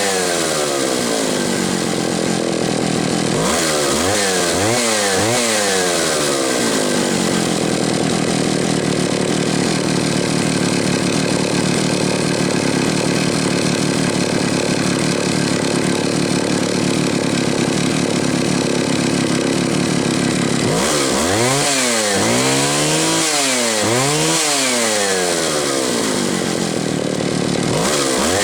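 Homelite 750 two-stroke chainsaw with a 43-inch bar running on a test run: revved up and down several times, then held at steady high revs for about fifteen seconds, then revved up and down again near the end.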